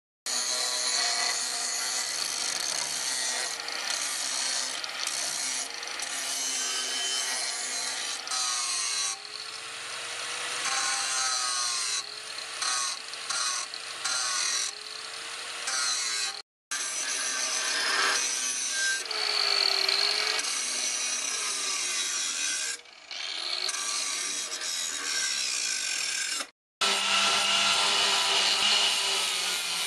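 Electric angle grinder grinding a steel machete blade forged from bearing steel, the abrasive disc on the metal making a steady grinding hiss while the motor's hum dips and recovers as the disc is pressed on and eased off. The sound breaks off for a moment twice.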